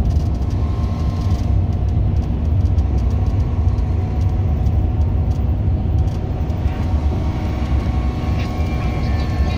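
Steady low rumble of a moving motor vehicle, road and engine noise, with a faint steady hum above it.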